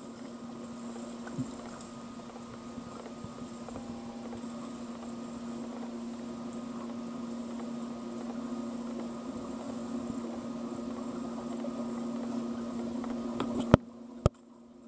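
Steady mechanical hum heard underwater, several fixed tones over a rushing noise, growing slowly louder. Near the end it cuts off abruptly with a sharp click, and a few clicks follow.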